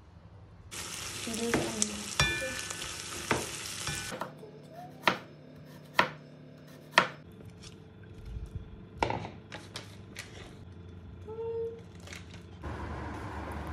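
Household kitchen handling sounds: a steady hiss with clinks, then sharp knocks and taps, three of them about a second apart, and the hiss again near the end.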